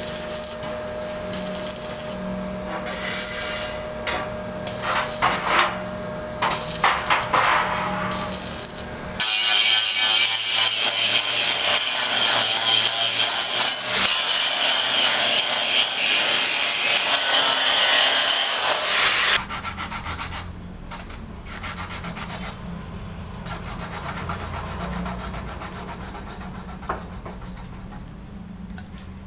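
Building-site tool work in several cut-together segments. The loudest, about a third of the way in and lasting some ten seconds, is a steady, harsh scraping noise.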